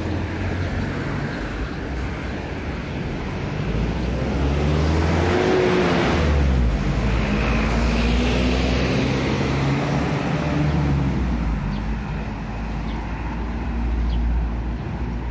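Road traffic on a city street: a steady rumble of vehicles driving past, with one passing close and loudest around the middle.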